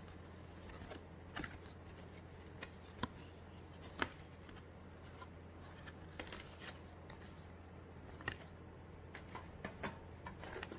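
Postcards and paper contents being handled: scattered light clicks and rustles of card being shuffled and set down, over a steady low hum.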